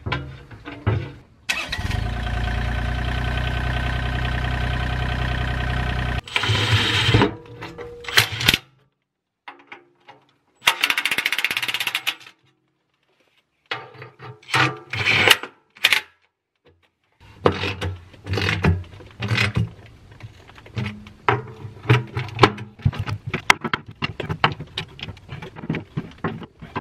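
Fastening the bolts of a mini excavator's steel belly pan by hand, with quick ratchet clicks and metal clinks and knocks through most of the stretch. Near the start a steady, even whir runs for about five seconds and then stops.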